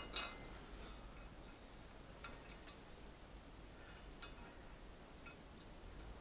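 A handful of faint, sharp clicks and clinks, some in pairs, as hands handle the wiring and plug connector at a truck's air dryer.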